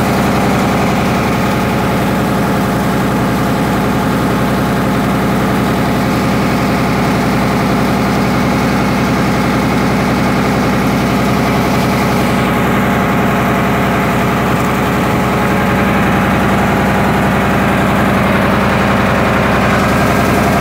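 Inboard diesel engine of a popopô Amazon riverboat running steadily under way, an even pulsing drone, with the hiss of the boat's wake along the hull.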